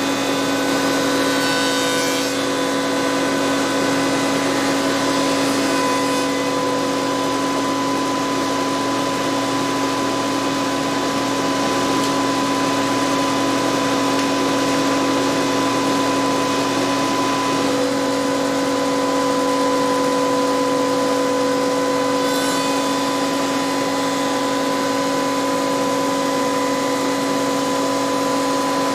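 Spindle shaper and its power feeder running steadily with a constant hum, while a cabinet door panel is fed past the cutter to profile its edge.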